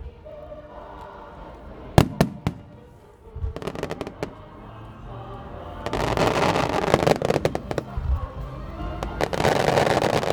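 Aerial firework shells bursting: a few sharp bangs about two seconds in, then a long stretch of dense rapid popping from about six seconds on. Music plays underneath.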